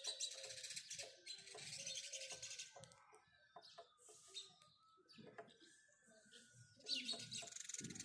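House sparrows chirping, with bursts of fast, dense chatter at the start and again near the end and scattered single chirps in between.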